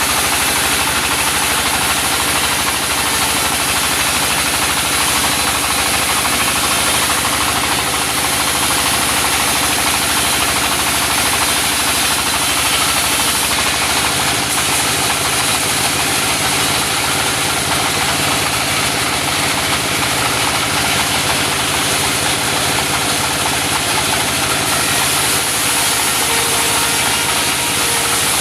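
Engine-driven circular saw of a portable sawmill running steadily, a continuous loud machine drone with a faint shift in its low end about halfway through.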